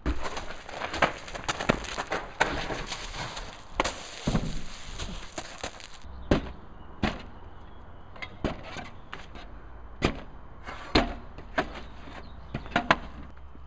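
Junk being handled and knocked about, a metal folding chair among it: a dense run of clattering and banging for about six seconds, then separate sharp knocks about once a second.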